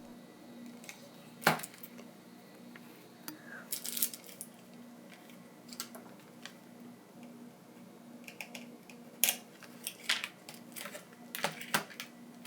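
Small hand tools and smartphone parts clicking, tapping and scraping while a flex cable is connected to the phone's board, with a sharp click about a second and a half in and clusters of taps later on.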